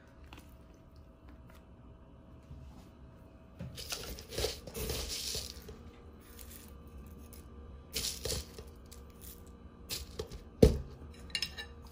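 Short bursts of dry rustling and crackling as fresh herbs are laid on a bowl of noodle soup and crisp fried shallots are tipped from a plastic jar over it, with one sharp knock near the end that is the loudest sound.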